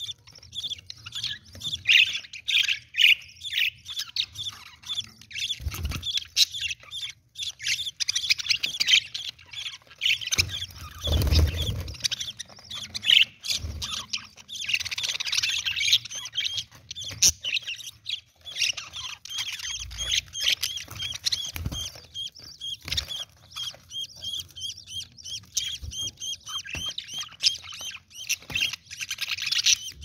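Budgerigar chick begging with rapid, high-pitched chirps while the hen feeds it beak to beak. There is a dull low thump about eleven seconds in.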